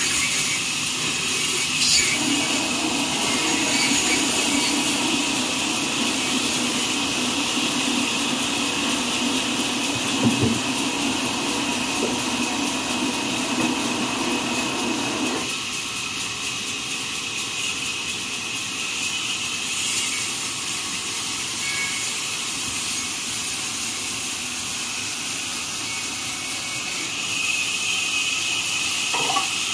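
Horizontal band sawmill running steadily with a continuous hiss. A deeper layer, the blade working through a log, sounds from about 2 s in and drops away about halfway through.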